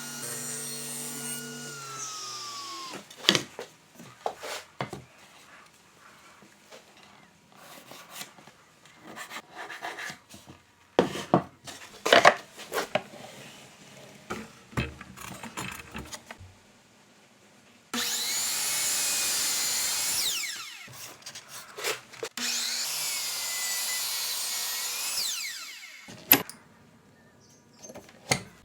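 A power tool's motor hums, then its pitch falls away as it winds down about two seconds in. Scattered knocks and clatter of wood follow. Near the end come two cuts, about two and three seconds long, of a power saw or similar tool working into wood.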